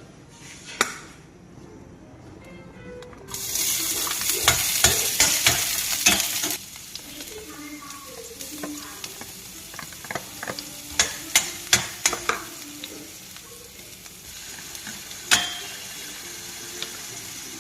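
Food going into hot oil in a frying pan with a sudden loud sizzle about three seconds in, which settles after a few seconds to a steady, quieter sizzle. A spatula stirs the food, clacking sharply against the pan several times near the middle and once more near the end.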